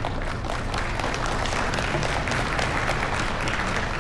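Audience applauding: a dense stretch of many hands clapping.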